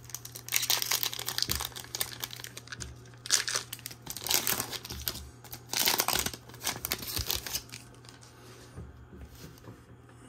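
A Disney Lorcana booster pack's foil wrapper crinkling and tearing as it is slit and peeled open, in several bursts, going quieter after about eight seconds.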